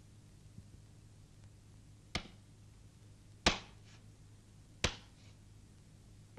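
Domino tiles slapped down one at a time on a concrete slab: three sharp clacks about a second and a half apart, the middle one the loudest, over a steady low hum.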